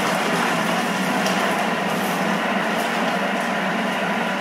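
Thermomix TM6 running its blades at speed 5, chopping chunks of leek, onion, garlic, carrot and potato for a five-second chop. It makes a loud, steady whirring, chopping noise with a constant low motor hum.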